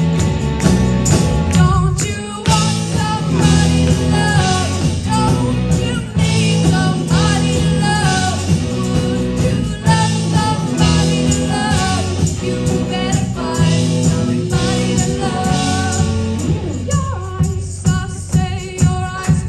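Live rock band with drums, guitar and bass, a girl singing the lead vocal over it. About three-quarters of the way through, the band thins out to a steady beat of about two strokes a second.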